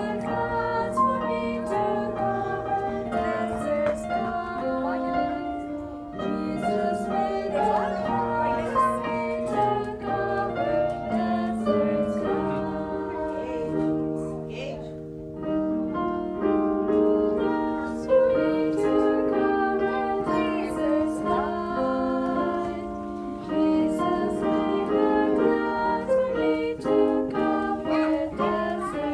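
A children's Sabbath School song playing: a sung melody over steady instrumental accompaniment, with a brief lull about halfway through.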